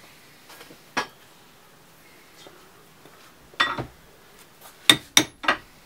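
Hammer blows on a chisel, metal on metal, knocking at the remains of a Holden Commodore tailshaft centre bearing on a shaft held in a bench vise: a light knock about a second in, a heavier strike a little past halfway, then three quick sharp blows near the end.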